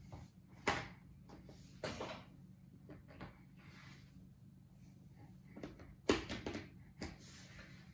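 Toy blocks being handled on a wooden floor by a crawling baby: about five short sharp knocks and clatters, the loudest about six seconds in, over a low steady hum.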